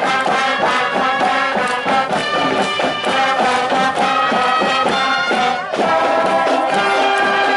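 Marching band playing a tune, brass melody over a steady drum beat.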